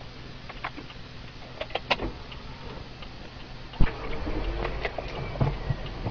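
Raindrops ticking on a car's windscreen and roof, heard inside the cabin over a low hum. About four seconds in comes a sharp knock, and a louder low rumble follows.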